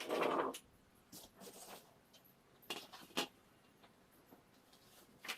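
Pieces of a new non-stick cookware set being handled: a short clatter at the start, then two light knocks about three seconds in and another near the end.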